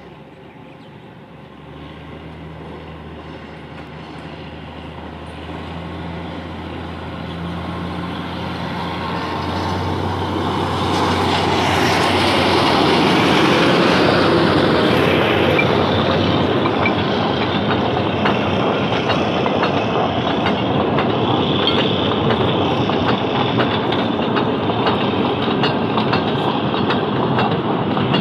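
Narrow-gauge salt train passing: the locomotive's engine hum grows louder as it approaches, then the loaded open wagons roll by with a steady rumble and a rhythmic clickety-clack of wheels on the rail joints.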